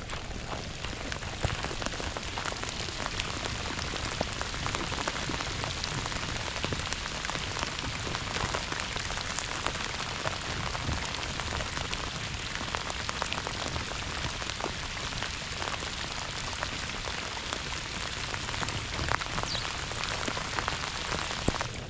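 Steady rain falling, a dense spray of small drop impacts.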